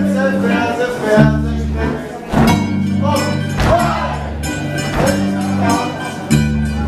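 Sirtaki dance music playing with a steady, even beat over a repeating bass line.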